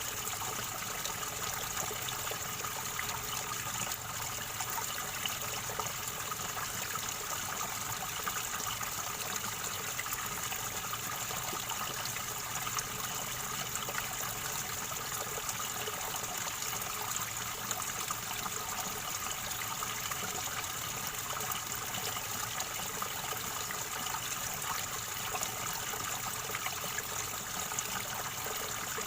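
River water flowing and gurgling over stones, a steady, unbroken rush.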